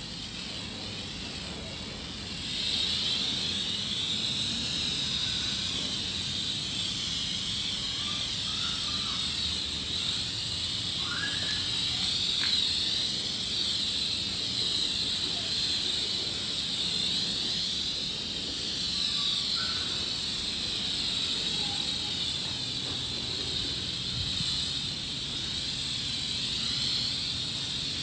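Self-serve car wash high-pressure wand spraying tire cleaner onto a car's wheel and tyre: a steady hiss of spray that wavers as the wand is swept, getting louder about two and a half seconds in.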